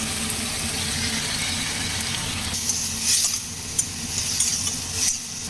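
Chopped onion, ginger and tomato sizzling in hot oil in a kadai, with a few short scrapes of a spatula stirring in the second half, over a steady low hum.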